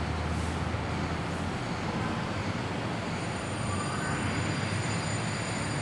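Steady background rumble and hiss of room ambience, with a low hum that stops about a second and a half in.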